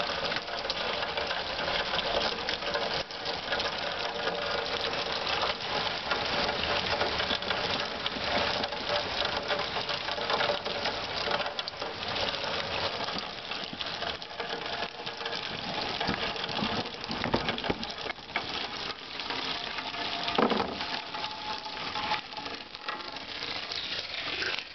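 Steady rain pattering on the plastic lids of rain barrels, mixed with a downspout's stream of runoff splashing onto a lid and into the water inside a barrel.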